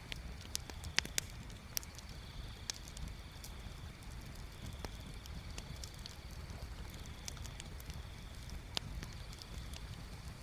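Bonfire crackling: scattered sharp pops and snaps, the loudest cluster about a second in, over a low steady rumble, with a faint high-pitched trill that comes and goes.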